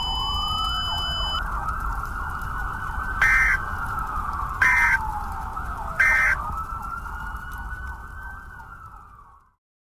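Fire engine siren wailing, rising and falling slowly, with three short horn blasts about a second and a half apart. It fades out and stops near the end.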